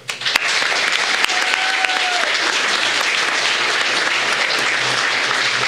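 Audience applauding, the clapping starting abruptly and holding steady.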